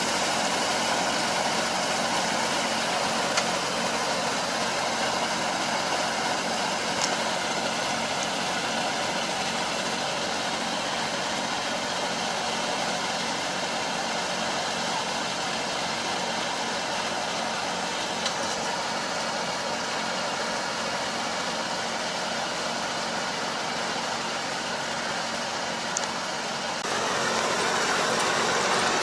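Tractor engine running steadily under load while pulling a puddling harrow through a flooded rice paddy. The sound changes abruptly near the end.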